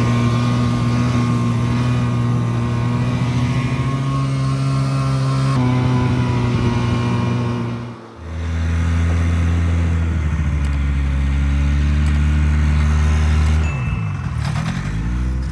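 Buran snowmobile's two-stroke engine running steadily under way across snow. After a break about 8 seconds in, a lower, steady engine idle takes over. Near the end the engine pitch dips and rises again.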